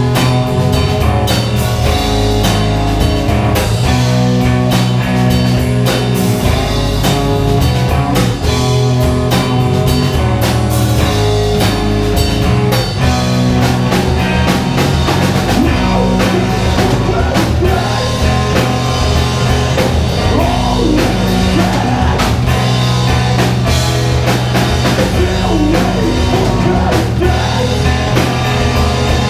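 An emocore/hardcore band playing loud rock live, with electric guitars and a drum kit beating steadily.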